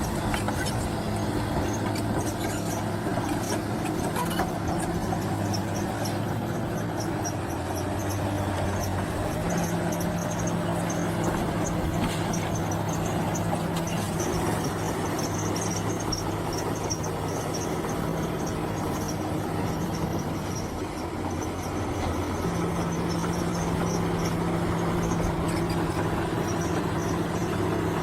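Bulldozer's diesel engine running steadily under work, its pitch stepping twice as the load changes, with a faint rapid high ticking over it.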